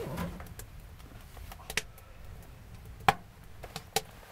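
A few sharp cracks and ticks from a freshly restoked Knico sheet-metal wood stove burning wood, scattered and irregular, the loudest about three seconds in.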